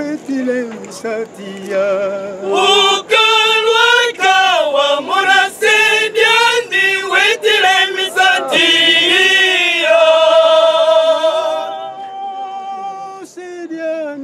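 Men's choir singing. It is quieter at first, then the full choir comes in loudly about two and a half seconds in, and the phrase ends on a long held note about twelve seconds in before the singing goes on more softly.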